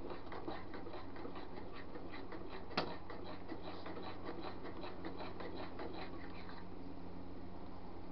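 Melted soft plastic being stirred in a small metal pot, the stirring utensil scraping and clicking against the pot several times a second, with one sharper knock about three seconds in. The stirring stops about six and a half seconds in.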